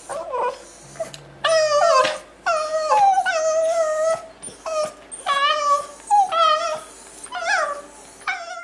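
Adult Cavalier King Charles Spaniel whining: a string of about eight drawn-out, high whines, each wavering up and down in pitch.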